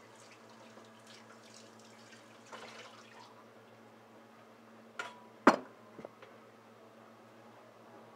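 Hand-washing dishes at a kitchen sink: water trickling and splashing, then dishes knocking together, with one sharp clack about five and a half seconds in as the loudest sound and a smaller knock just after.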